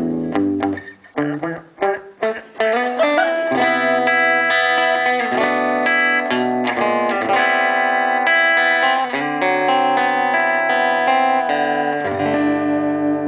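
Solo acoustic guitar playing the instrumental ending of a song. It opens with short, choppy strummed strokes, then moves to ringing fingerpicked chords that sustain, and near the end one held chord wavers.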